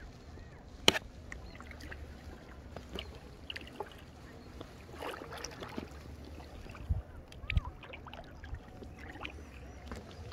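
Water splashing and dripping around an Intex Explorer K2 inflatable kayak while it is paddled, with a sharp knock about a second in and a steady low rumble underneath.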